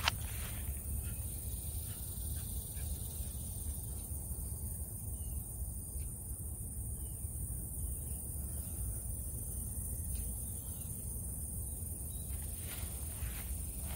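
Outdoor pondside ambience: a steady low rumble with a steady high-pitched insect drone over it and a few faint chirps. A sharp click at the very start, and rustling footsteps in the grass near the end.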